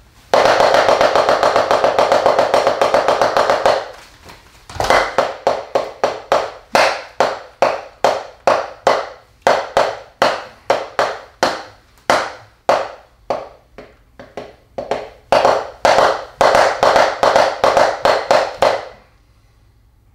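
Wooden taiko sticks (bachi) playing a solo on a rubber drum practice pad. It opens with a fast, loud roll of about three and a half seconds and a single low thump. Then come spaced strokes, roughly two a second, that get softer and then louder again, and the solo ends in a second fast roll that stops about a second before the end.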